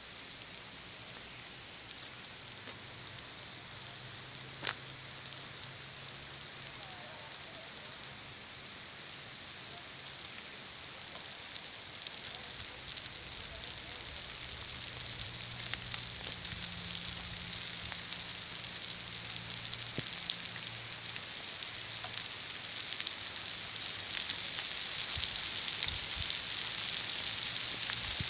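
Steady hiss of rain falling, growing gradually heavier and louder, with a single sharp tick about five seconds in.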